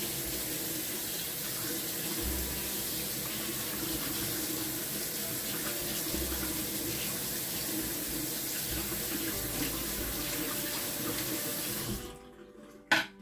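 Water running steadily from a kitchen tap into a stainless steel sink, splashing over something held under the stream. The tap is shut off about a second before the end, followed by a short knock.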